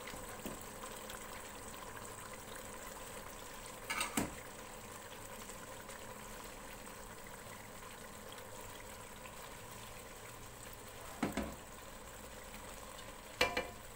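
Chicken masala gravy, thinned with water, bubbling at a steady boil in the pot as the rice is layered over it. Three brief knocks break through, one a few seconds in and two near the end.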